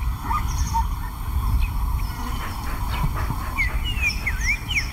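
Male lion panting, winded after a chase. A few short bird chirps rise and fall near the end.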